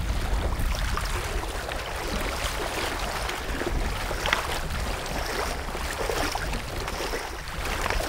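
Legs wading through shallow river water, sloshing and splashing with each step, over a low wind rumble on the microphone.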